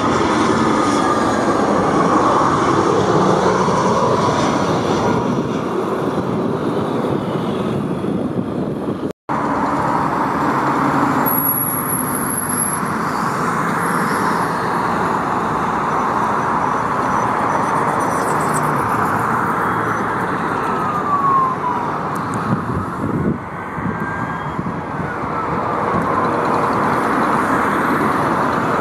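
Narrow-body jet airliner engines: a loud, steady rush with a few whine tones that slide down and back up. The sound cuts out for an instant about nine seconds in.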